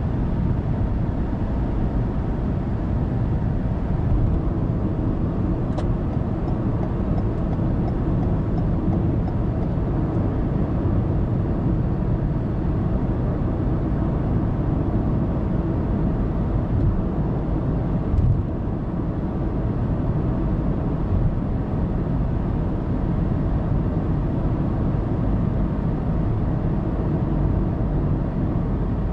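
Steady road noise of a car cruising on an expressway, a low tyre and engine rumble heard from inside the cabin through a dashcam. A faint click comes about six seconds in and a brief knock about eighteen seconds in.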